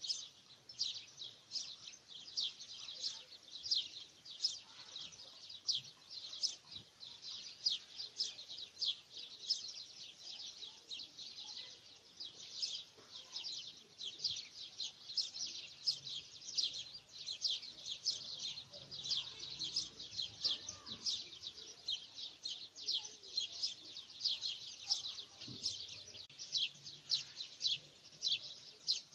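Small birds chirping: a steady stream of short, high chirps, about three a second, without a break.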